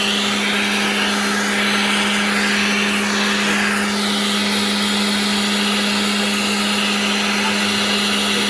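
Genmitsu 3020 PRO MAX CNC router running, its spindle giving a steady pitched hum over a hiss of cutting noise as the bit mills the workpiece; the higher cutting noise shifts in pitch between about one and four seconds in as the tool changes path.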